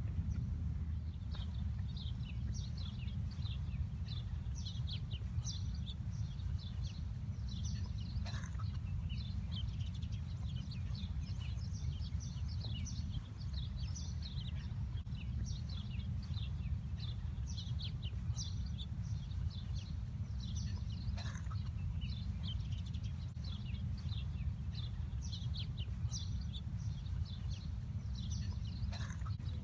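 Small songbirds chirping in quick, continuous runs of short high notes, over a steady low rumble.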